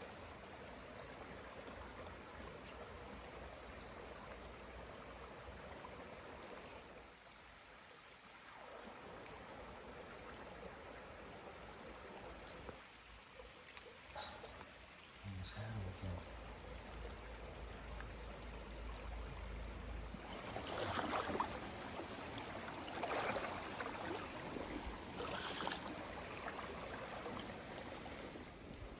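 Small rocky creek running and trickling over stones in shallow riffles, a steady rush that grows louder and brighter for several seconds in the last third.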